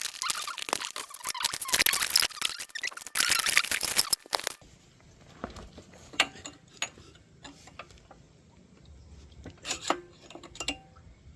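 Handling noise of metal parts and tools being worked by hand: rattling, scraping and squeaking, loud for the first four seconds or so, then a few quieter clicks and knocks.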